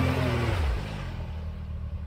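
Side-by-side UTV engine revving hard while stuck in a mud hole. The revs fall away about half a second in, and the engine then runs low and quieter.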